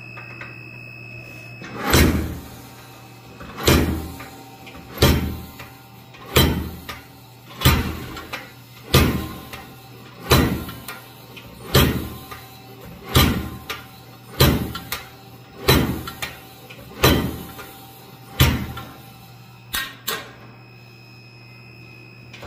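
Blacksmith's hammer striking a fuller on hot steel at the anvil: about thirteen heavy blows spaced a little over a second apart, each ringing briefly, then two lighter taps near the end. The steel is being fullered to spread it wider.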